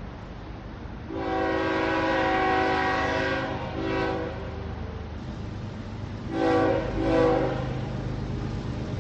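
Indian Railways locomotive air horn sounding a chord of several tones: one long blast, a brief one, then two short blasts, over the steady low rumble of the train.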